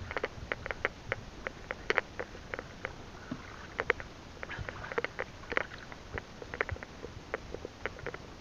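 Light, irregular clicks and taps, a few a second, around the hull of an outrigger fishing boat while a fishing net is hauled in over the side, over a low steady rumble.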